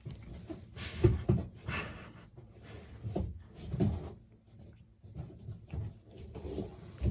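A cat drinking from a pet water fountain, making irregular wet lapping and splashing sounds.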